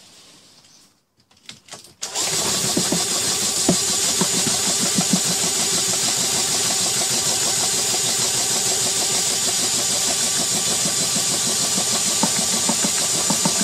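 Cordless drill running at a steady speed, turning a five-gallon bucket power sifter, with the stones inside knocking around as the bucket tumbles. It starts about two seconds in and cuts off suddenly near the end.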